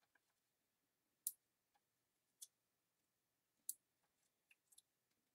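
Faint, sharp clicks of fingers and fingernails handling a scalloped die-cut cardstock piece, a handful spread through the stillness, the loudest about a second apart.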